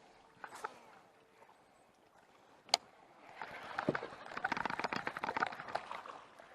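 A single sharp knock, then about three seconds of busy, irregular water splashing.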